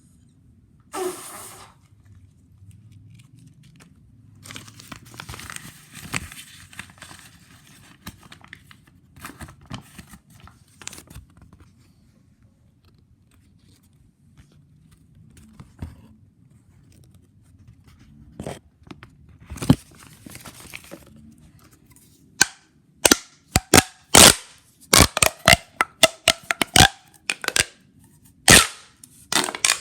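Fidget toys being handled: a stretch of rustling and crinkling, then a quick run of sharp clicks and snaps in the last third.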